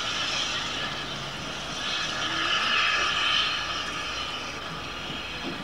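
Steam locomotive hissing steam, a steady hiss that swells about two seconds in and then eases off.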